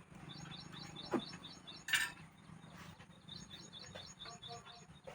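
A small bird chirping in quick runs of about six chirps a second, with a sharp knock about two seconds in.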